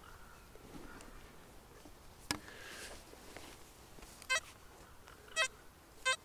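XP Deus metal detector giving short beeps as its coil is swept over a freshly dug hole, three beeps in the last two seconds: it is still signalling a metal target in the hole. A single sharp knock comes about two seconds in.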